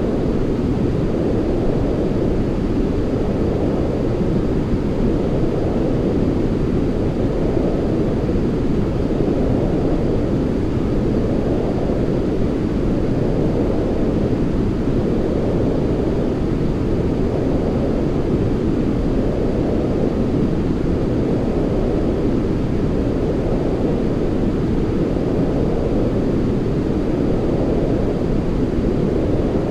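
Continuous 'white noise' sleep sound, a steady deep hiss with most of its weight low and little treble, gently swelling and easing about every two to three seconds.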